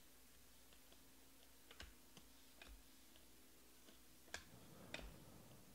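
Near silence with a few faint, scattered clicks of a stack of Panini Prizm baseball cards being slid and flipped through by hand, the clearest about four seconds in.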